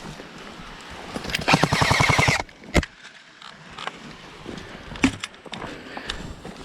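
Airsoft electric gun (AEG) firing a rapid full-auto burst lasting about a second, followed by a single sharp snap.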